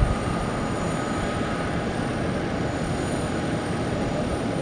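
Airbus A340-300 on final approach with its four CFM56 turbofans at approach power: a steady rumble with a faint whine on top. A short click right at the start.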